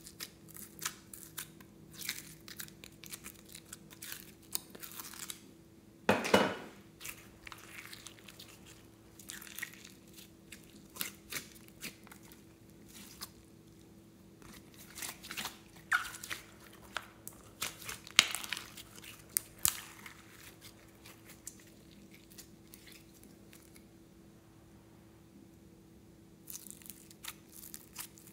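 Glitter slime being peeled out of a plastic mold and stretched by hand: sticky crackling clicks and pops, with one louder burst about six seconds in and a lull of a few seconds near the end.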